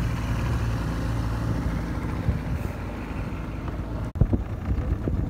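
Small outboard motor running steadily, its hum fading after about two seconds. After a sudden break near the end, uneven bumps of wind on the microphone.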